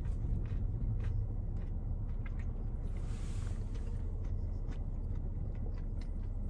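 Someone chewing a mouthful of crispy fried chicken sandwich, with faint mouth clicks, over a steady low rumble.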